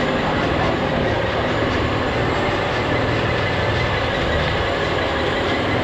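Scania truck's diesel engine held at steady high revs while its drive tyres spin in a burnout: a constant loud engine note under a steady rushing noise.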